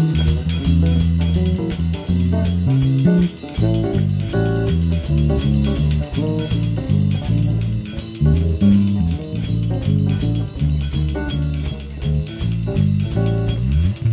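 Live instrumental jazz-style jam: bass guitar and guitar playing busy, plucked melodic lines together, with a drum kit ticking time on cymbals.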